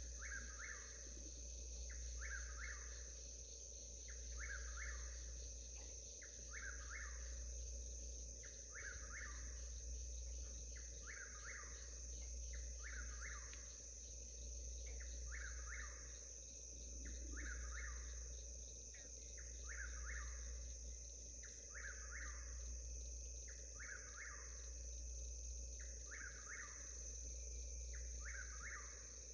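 Whip-poor-will singing, its short call repeated about once a second, over a steady high drone of crickets.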